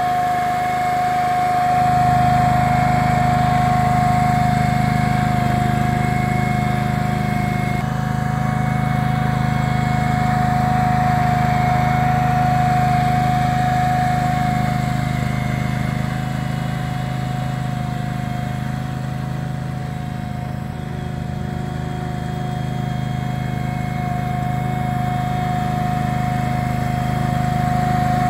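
Small engine of a ride-on greens roller running steadily as the machine rolls across the green, with a steady high whine over the engine hum. The sound eases a little in the middle and comes back up near the end.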